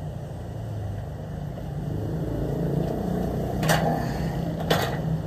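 Steady low rumble of city traffic, with two short knocks about a second apart near the end as workout equipment on the floor is handled.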